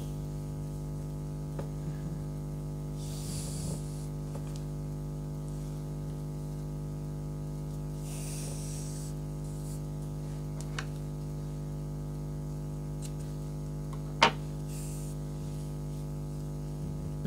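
A steady low electrical hum with a stack of overtones, over which come a few soft rustles of yarn being handled and one sharp click about fourteen seconds in.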